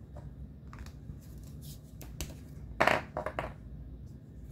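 Light handling clicks, then a quick cluster of short scratchy strokes about three seconds in: a highlighter marker marking off numbers on a paper game sheet.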